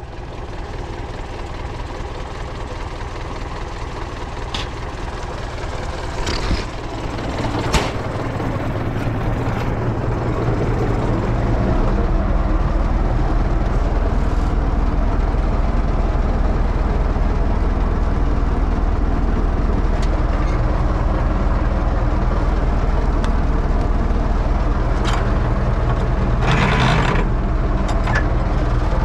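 UTB Universal 650 tractor's four-cylinder diesel engine running, growing louder over the first dozen seconds and then holding steady. A few sharp knocks and rattles of machinery sound over it, two of them about seven seconds in and another near the end.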